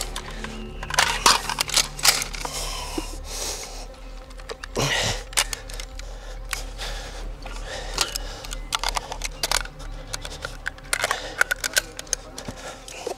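Sharp metallic clicks and clacks of an Stgw.57 rifle being handled, scattered irregularly: its controls, magazine and bolt worked as it is readied to fire a rifle grenade.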